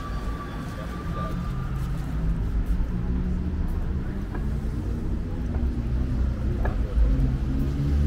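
A motor vehicle's engine running close by in the street, a low hum that grows a little louder over the seconds. A thin, high steady tone sounds briefly at the start.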